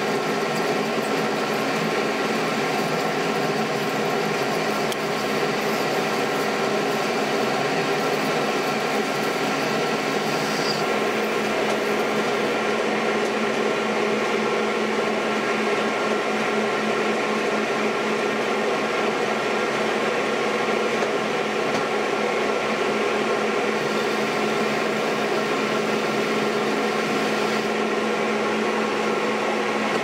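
Metal lathe running steadily under power, its gearing giving a constant multi-toned whine while a shaft is roughed down to 28 mm.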